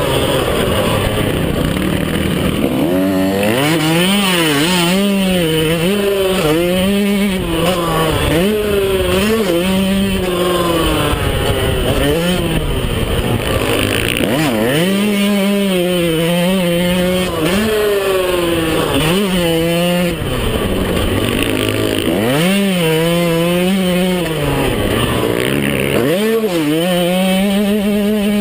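Yamaha YZ125 two-stroke single-cylinder motocross engine under hard riding, its pitch rising sharply and dropping back again and again as the throttle is opened and chopped and the gears change. Heard from a chest-mounted camera on the rider.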